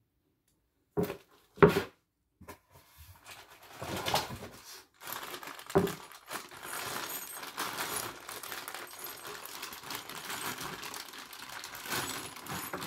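Two short knocks about a second in, then a plastic bag of furniture-assembly screws and fittings crinkling and rustling as it is handled.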